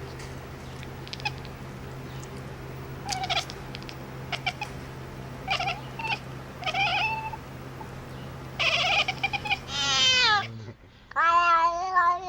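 A pet animal calling: short calls over a steady hum, then a long falling wail about ten seconds in and a long wavering yowl near the end. The hum stops just before the last call.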